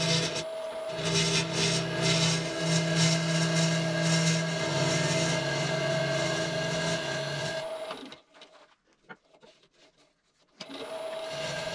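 Wood lathe running with a tool or abrasive working the spinning red cedar bowl, a steady motor hum under a scratchy rasping noise. About three-quarters of the way through, the sound drops abruptly to near silence for about three seconds, then comes back.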